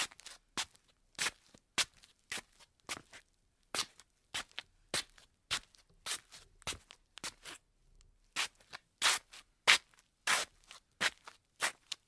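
Slippers shuffling on a tile floor: a run of soft scuffing, brushing steps, about two a second and unevenly spaced, the loudest scrapes coming about three-quarters of the way through.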